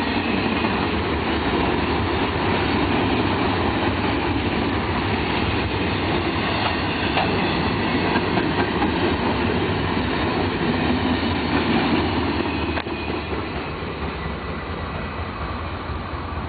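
Empty intermodal spine cars of a freight train rolling past: a steady rumble of steel wheels on rail with clicks and a thin high wheel squeal. The noise drops suddenly about 13 seconds in.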